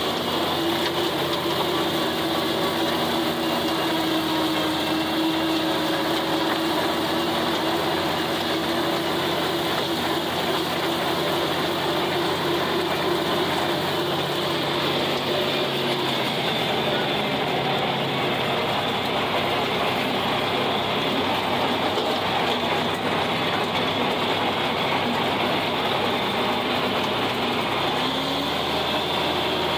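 John Deere 4020 tractor's six-cylinder engine running steadily under load while driving a 1408 rotary cutter through grass, heard from the operator's seat. The low engine tones shift slightly about halfway through.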